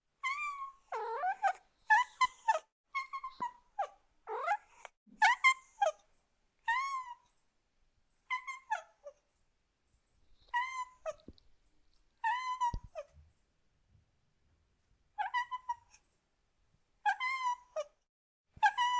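A cat meowing over and over in short, high calls, some falling in pitch, coming quickly at first and then with longer gaps.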